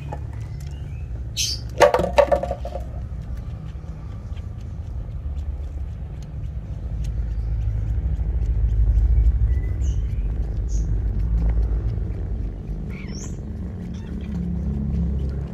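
Kittens purring close up while suckling, a steady low rumble that grows louder in the middle. A short, sharp sound about two seconds in, and a few high bird chirps.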